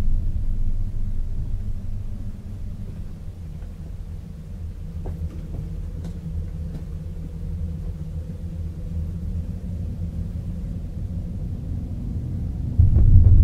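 A deep, low rumbling drone. It eases down over the first couple of seconds, holds quieter with a faint steady hum above it and a few faint clicks in the middle, then jumps suddenly back up near the end.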